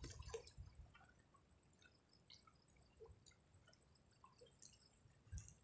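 Near silence: faint outdoor ambience with soft, scattered drip-like ticks, and a low rumble at the start and again near the end.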